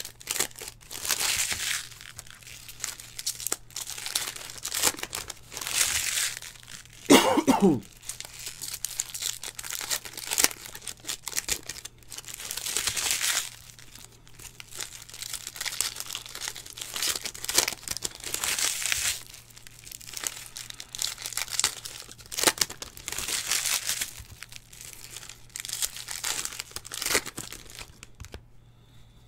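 Trading card pack wrappers being torn open and crinkled, over and over, as packs of Panini Donruss football cards are ripped. There is a short falling vocal sound, like a cough or grunt, about seven seconds in.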